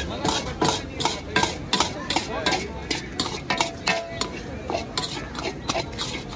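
A long ladle stirring peanuts through thick boiling jaggery syrup in a large metal wok, scraping and knocking against the pan about two or three times a second, some strokes with a brief metallic ring.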